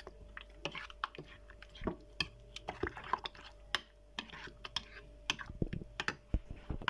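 A spoon stirring a thick mayonnaise-and-ketchup sauce in a bowl: irregular wet squelches and sharp clicks of the spoon against the bowl.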